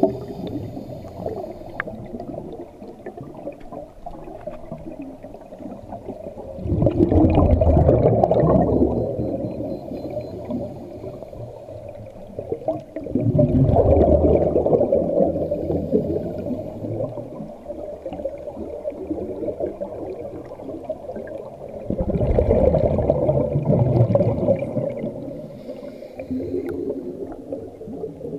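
Scuba diver breathing through a regulator underwater: three long bubbling exhalations of a few seconds each, about seven, thirteen and twenty-two seconds in, with quieter stretches between breaths.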